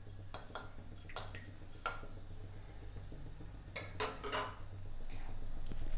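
Cumin and mustard seeds crackling in hot oil in a kadhai, stirred with a metal spatula: a few scattered sharp pops and clinks, several coming in a quick cluster about four seconds in.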